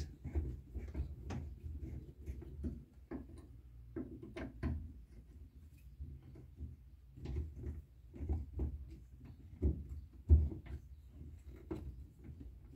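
Irregular clicks and knocks as hands twist a gear-lever extension onto a Volkswagen Kombi's gear shift lever, with a low rumble of handling; the loudest knock comes about ten seconds in. The extension's thread will not turn any further.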